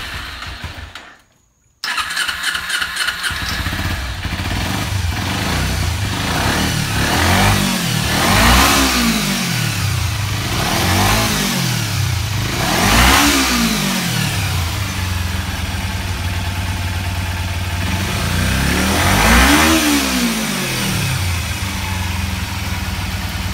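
Kawasaki Ninja 250R parallel-twin engine, freshly cleaned carburetors: it dies out briefly near the start, then runs steadily again. It is revved four times, each rev rising and falling back to idle cleanly, no longer bogging.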